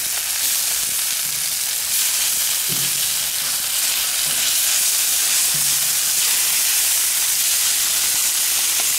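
Chicken breasts sizzling on a hot flat-top griddle as they are turned over with tongs: a steady frying hiss that gets a little louder about two seconds in.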